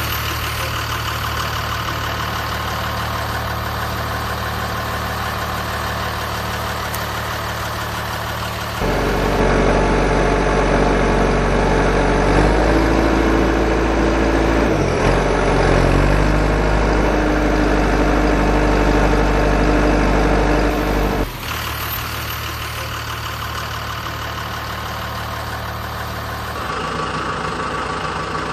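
Dubbed vehicle engine sound effect, running steadily. About nine seconds in it switches abruptly to a louder, deeper engine, and it drops back to a quieter engine after about twenty-one seconds.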